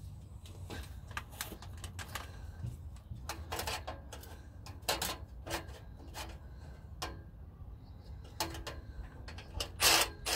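Hand tools clicking and clanking on metal exhaust hardware while headers and a Y-pipe are bolted up: a string of irregular sharp clicks and knocks, the loudest near the end, over a steady low hum.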